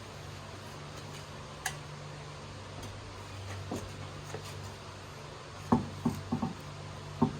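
Sharp metallic clinks and knocks from a wheel and lug nuts being handled while the wheel is mounted on the hub: a few single clicks, then a quick cluster of knocks about six seconds in and another near the end, over a steady low hum.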